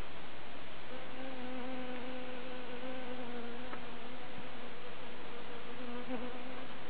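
Honeybee buzzing in flight: a steady hum that starts about a second in and wavers near the end, over a constant background hiss.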